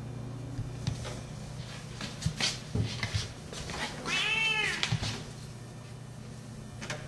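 A Siamese-Himalayan cross cat gives one drawn-out meow about four seconds in, rising and then falling in pitch. A few light knocks come before it.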